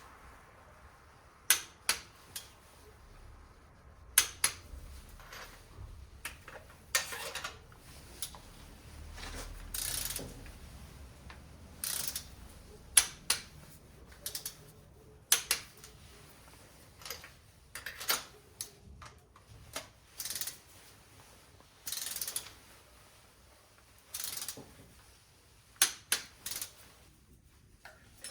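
Hand ratchet and socket clicking in short runs, with metal tool clinks, at irregular intervals of a second or two, while the spark plugs are worked on.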